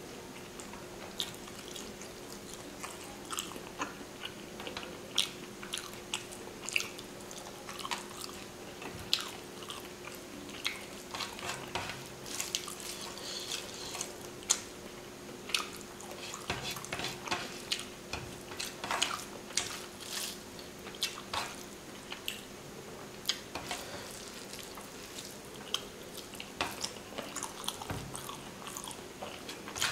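Close-miked eating sounds: wet chewing and lip smacks, with fingers squishing rice and fish curry together on a steel plate. The sounds come as many short, irregular clicks over a faint steady hum.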